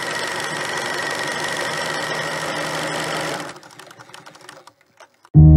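Film projector sound effect: a steady mechanical whirring clatter with a constant high whine, which stops about three and a half seconds in and is followed by a few faint ticks. Just before the end, a loud, low musical chord strikes and rings on.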